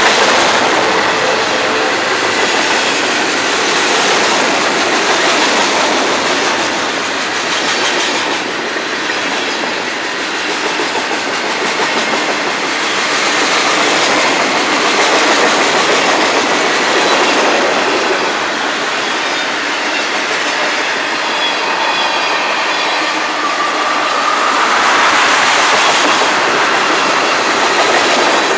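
Freight cars of a long Florida East Coast Railway train rolling past close by: a continuous rumble and rattle of steel wheels on the rails, with clickety-clack over the rail joints.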